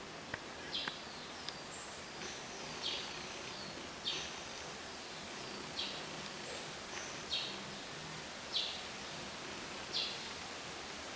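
A bird repeating a short, high call that drops in pitch, about every second and a half, over steady outdoor background noise. A few faint clicks come in the first two seconds.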